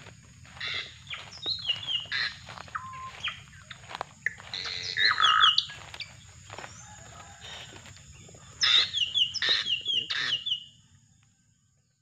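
Drongo giving series of short, sharp, falling call notes in two bouts, one early on and one starting about two thirds of the way in, mixed with rustling and footsteps through undergrowth. A faint steady high whine runs underneath, and everything fades out just before the end.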